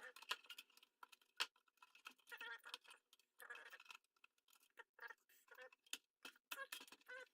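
Near silence with faint, irregular clicks and scrapes of small plastic parts being handled and pried inside an opened PlayStation 4.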